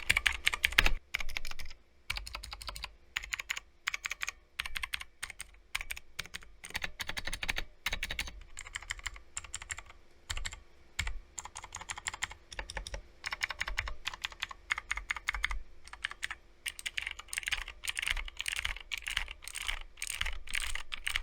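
Typing on an E-Yooso Z686 mechanical keyboard with clicky blue switches: fast, uneven runs of sharp key clicks with brief pauses between bursts.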